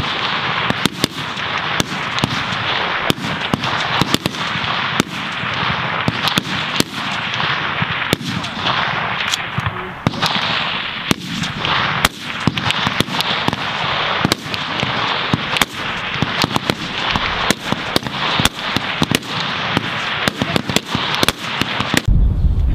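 Rifle shots from a firing line, many rifles firing irregularly, some sharp and close, others fainter, over a steady hiss.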